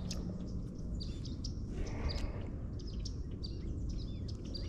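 Small birds chirping: short, high calls scattered all through, over a steady low background noise.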